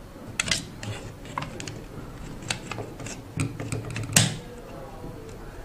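Hands handling a hexapod robot's black metal body plate and servo brackets, setting the plate into place: a scatter of light clicks and taps, with one sharper knock about four seconds in.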